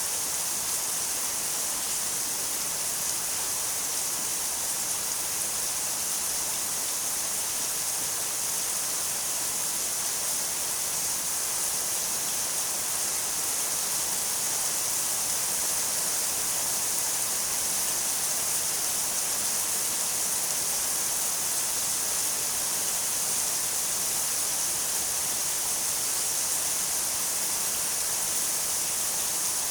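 Steady rain falling, an even unbroken hiss with no single drops or other sounds standing out.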